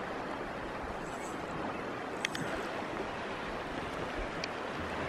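Steady rushing of a flowing river's current, with a brief faint click about two seconds in.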